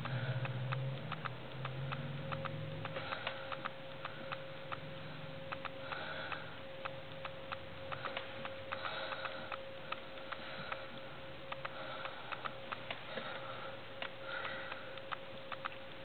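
Ballpoint pen writing on spiral-notebook paper: irregular light ticks and soft scratches as strokes are made, with a steady faint hum underneath.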